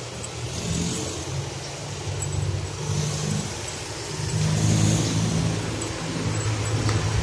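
Motorcycle and tricycle engines running on the street, a steady low hum that grows louder about four and a half seconds in.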